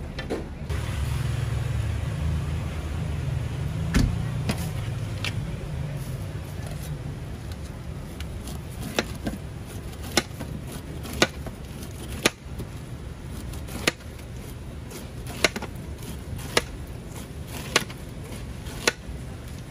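A large kitchen knife peels the skin off a whole pineapple in downward strokes, each stroke ending in a sharp tap of the blade on the plastic tray, about once a second in the second half. A low rumble runs under the first few seconds.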